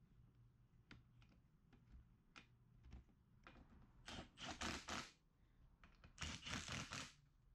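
A ratchet wrench clicking in two quick runs, each about a second long, as bolts are run into the seat frame. Scattered small clicks and knocks of hardware come before them.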